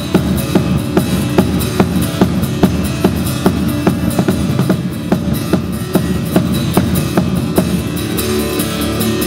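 Music with a steady, fast drum beat, about two and a half beats a second; near the end the beat stops and held notes ring on.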